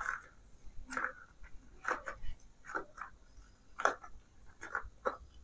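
Faint scattered crinkles and crackles of a small polythene packet inside a balloon being squeezed by hand to burst it, about one every half second to second.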